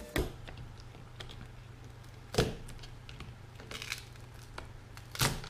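Plastic back cover of a Nexus 6 being pried and peeled off its adhesive: three sharp cracks, about two and a half seconds apart, with faint crackling between them over a low steady hum.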